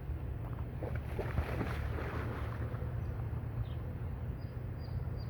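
A dog splashing into water about a second in, the splash lasting a second or two, over a steady low rumble of wind on the microphone.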